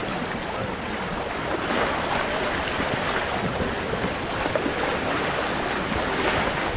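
Steady wind noise on the microphone mixed with the wash of choppy water, recorded aboard a sailboat under sail.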